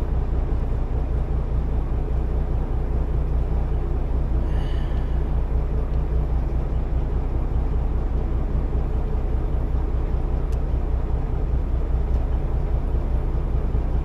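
An engine idling steadily, a low, even drone with no change in speed.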